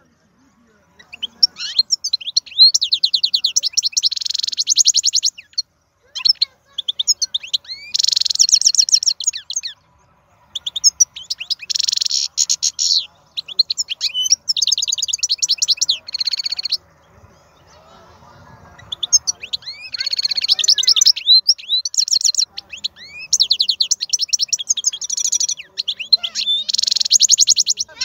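European goldfinch singing: fast, high twittering phrases full of rapid trills, in bursts of several seconds broken by short pauses, with a longer pause about two-thirds of the way through.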